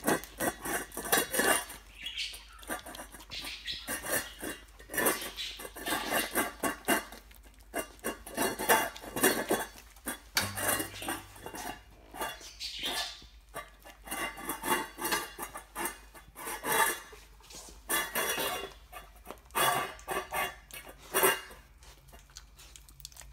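Dog licking out a stainless steel food bowl, the bowl clanking and scraping on the tile floor in irregular clusters of sharp metallic knocks.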